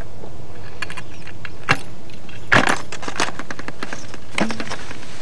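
M72 light anti-tank rocket launcher being readied for firing by hand: its fittings give a few separate sharp clicks and rattles, the loudest cluster about two and a half seconds in.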